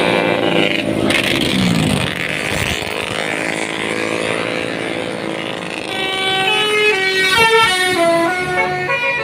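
A bus going by with its engine running and tones sliding down in pitch, then about six seconds in a Basuri multi-tone 'telolet' bus horn plays a quick tune of short stepped notes until the end.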